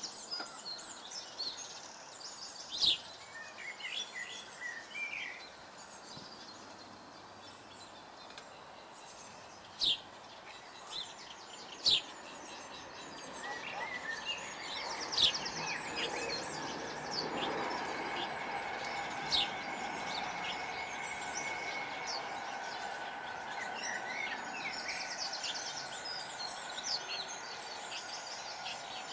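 Small songbirds chirping and trilling, with a few sharp clicks standing out above them. About halfway through, a steady low hum with faint held tones comes up and runs on beneath the birdsong.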